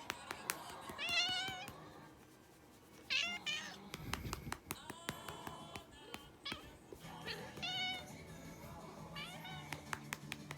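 Tortoiseshell cat meowing in about four drawn-out, wavering calls, with short sharp smacks scattered between them as she is being patted firmly.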